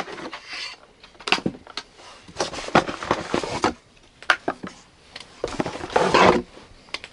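Hard plastic toy playset parts being handled: a series of separate knocks and short clatters as pieces are taken out of a cardboard box and set down on a table.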